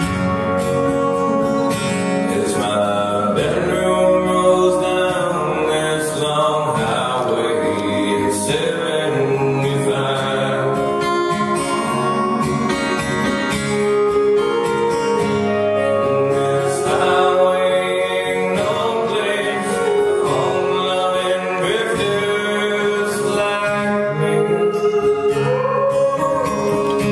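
A man singing to his own acoustic guitar, live at a sound check, with long held and sliding vocal notes over strummed chords.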